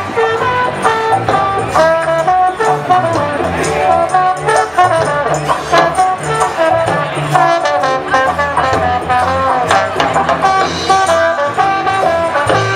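Live brass-band funk with no vocals: trombone and saxophone play a moving melody over sousaphone bass and a drum kit.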